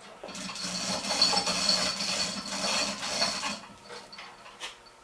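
Wooden dolly scraping along the shop floor as it is slid under the hoisted machine: a rough, continuous scrape lasting about three seconds, stopping a little past halfway.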